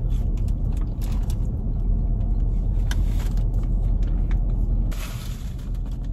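Steady low rumble of a car's engine running at idle, heard inside the cabin, with a few small clicks and a brief rustle near the end.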